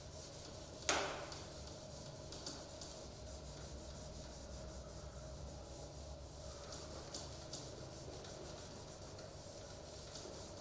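Whiteboard eraser wiping a whiteboard in repeated faint rubbing strokes, one sharper and louder stroke about a second in.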